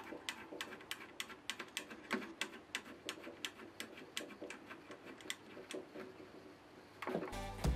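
A quick run of light ticks or clicks, several a second, with music coming back in near the end.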